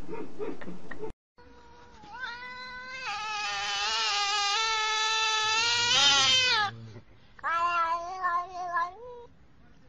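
Black-and-white domestic cat meowing up at the camera: one long drawn-out call of about five seconds that swells louder, then a shorter call a second later. It opens with a second of unrelated noise that cuts off abruptly.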